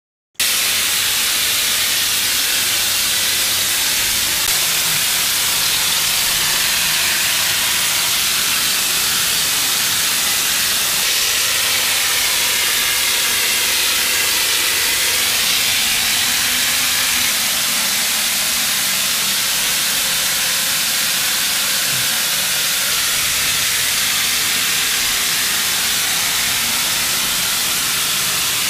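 Hemp-lime projection machine's spray nozzle hissing steadily as compressed air blows the hemp and lime mix onto the ceiling. The hiss cuts in abruptly just after a moment of silence and holds even throughout.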